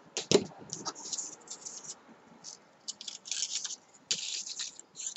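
Paper rustling and crinkling in irregular spurts as cut-out paper hearts and petals are handled, with a single knock about a third of a second in.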